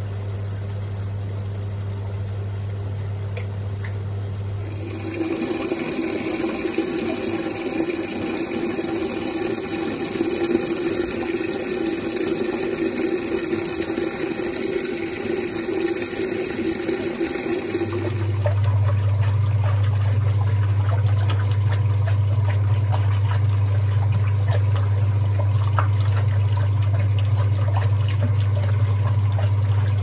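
Hoover Keymatic washing machine's newly fitted drain pump humming steadily as it pumps water out. For about thirteen seconds, starting about five seconds in, the hum gives way to a steady rush of water; the hum then returns, louder, with a light crackle over it.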